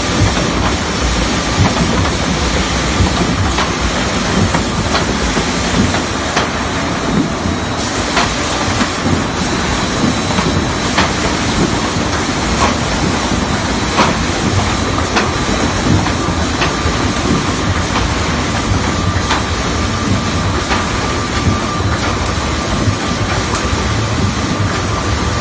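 Industrial multi-head plywood sander running and sanding plywood panels: a loud, steady rumble and hiss with scattered sharp clacks at irregular intervals.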